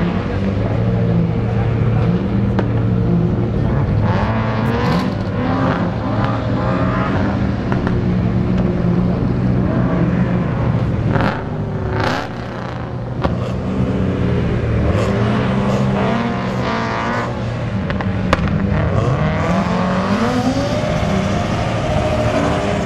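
Car engines revving hard as drift cars slide around a cone course, the revs climbing and falling again and again.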